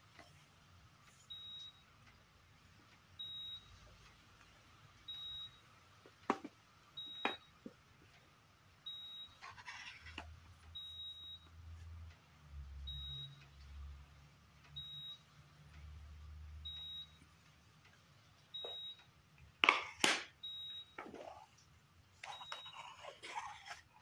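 Wooden puzzle box segments clacking and knocking as they are swung open into a heart and folded back, with the loudest knocks late on. A short high electronic beep repeats about every two seconds behind it.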